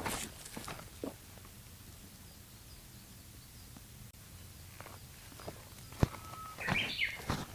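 Footsteps on a mountain trail: a couple of steps at the start, a pause of a few seconds, then steps again near the end. A short bird call, a brief steady whistle and some chirps, comes near the end.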